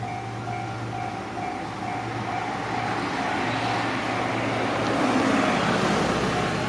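Japanese level-crossing warning bell ringing in a steady, rapid repeated chime. A train passes over the crossing, its rolling noise swelling to a peak about five seconds in and partly drowning the bell.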